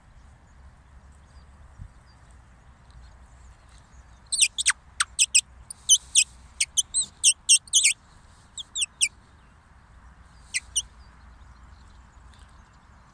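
Common linnets calling: a quick run of short, sharp chirps, each dropping in pitch, for about four seconds from roughly four seconds in, then a few scattered chirps. A faint steady background noise lies under them.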